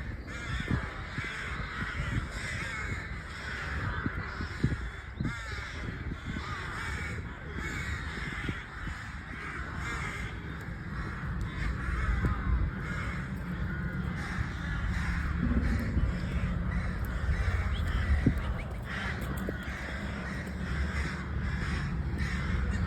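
A flock of crows cawing, many overlapping calls with no break, over a low rumble.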